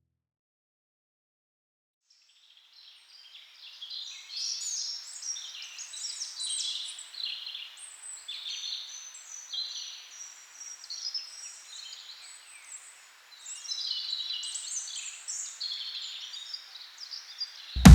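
Small birds chirping and twittering, many short overlapping calls, fading in about three seconds in after near silence. Loud electronic music with heavy bass cuts in at the very end.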